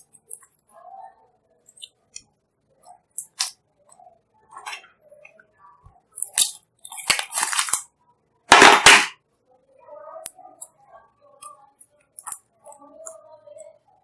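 Fluffy slime being squeezed and stretched by hand, giving irregular sharp crackling pops of trapped air with softer squishing between; the loudest crackle comes about nine seconds in.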